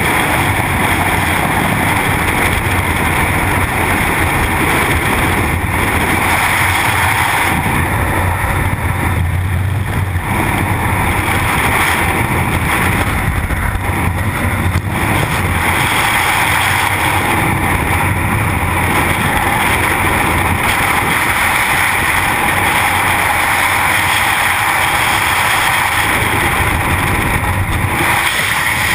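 Loud, steady rush of freefall airflow buffeting a GoPro action camera's microphone.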